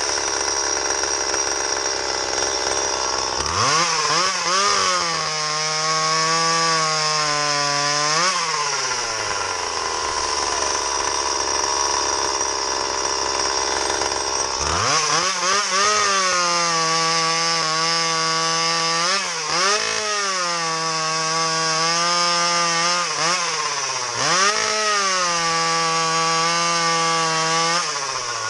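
Stihl MS170 two-stroke chainsaw, fitted with a home-made exhaust pipe and run without an air filter, idling and then revved to full throttle twice for test cuts in wood. Its pitch sags and recovers under the load of the cut and drops back to idle between the two runs.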